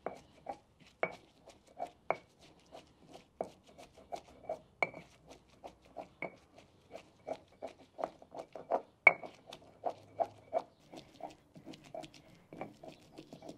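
Stone pestle pounding and grinding in a volcanic-stone molcajete, crushing salsa ingredients: a steady run of short gritty knocks, about two to three a second, some with a brief ringing tick, the loudest about nine seconds in.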